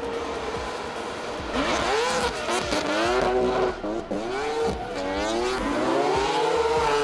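Drifting cars' engines revving up and down in quick swoops, with tyres squealing as they slide, getting louder about a second and a half in after a steady hum.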